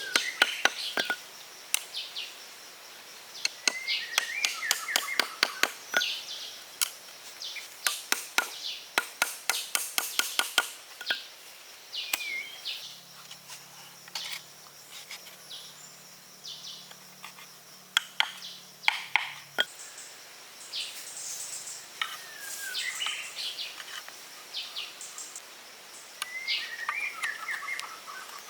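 Birds chirping, with many sharp clicks and taps in quick runs, densest about a third of the way in, and a faint low hum partway through.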